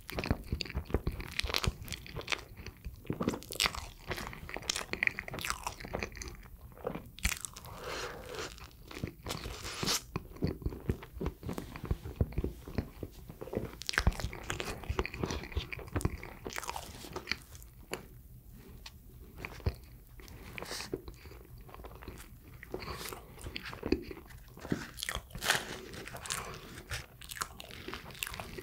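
A person biting and chewing sweet bread, with a close, irregular run of many short mouth clicks and smacks.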